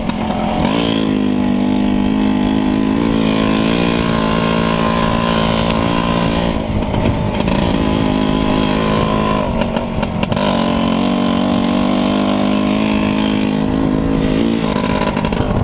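A small vehicle's engine running under load while being ridden. Its note drops and climbs again several times, at about 3, 6½, 10 and 14½ seconds in, as the throttle eases and opens again.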